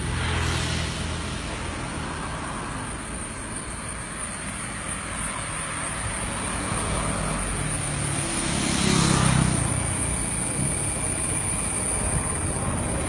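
Road traffic going by on a roadside, a steady noise with one vehicle passing loudest about nine seconds in.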